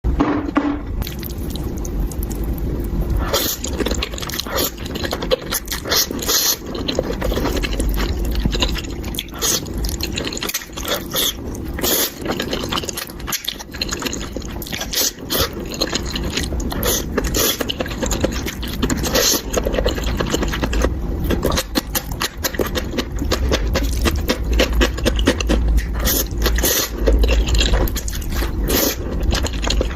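Utensils scraping and clicking against a dish of saucy noodles, with wet food sounds, many short clicks throughout over a steady low rumble.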